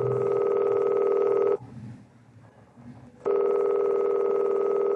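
Telephone ringing twice: two rings of about a second and a half each, with a pause of about the same length between them.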